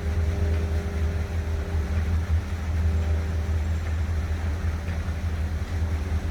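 City ambience: a steady low rumble with a faint machinery hum from distant construction work, under the hiss of water fountains.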